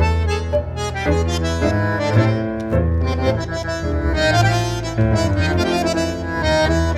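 Instrumental background music: held chords over a pulsing bass line, with notes changing about every half second.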